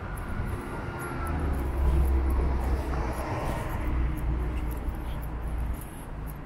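A passing road vehicle in city traffic: a low engine rumble that swells about a second in, peaks in the middle and fades near the end, over general street hum.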